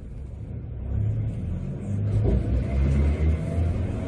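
Sapporo streetcar running and picking up speed, heard from inside the car: a low hum that swells over the first second, with a faint rising motor whine from about halfway through.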